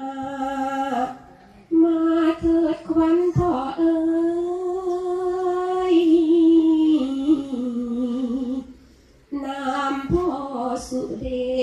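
A woman's solo voice sings a su khwan soul-calling invocation into a microphone, in long held, wavering notes. She pauses briefly about a second and a half in and again near the nine-second mark.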